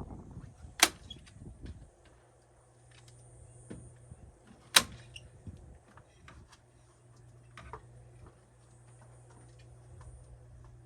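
Two sharp impacts about four seconds apart, with lighter clicks and taps between them, over a faint steady low hum.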